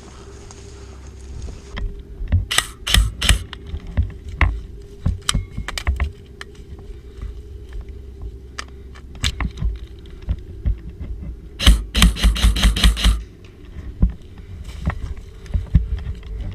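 Airsoft gunfire: a few sharp shots about three seconds in, then a fast full-auto burst of about a dozen shots around twelve seconds in, with scattered clicks and gear rattle between.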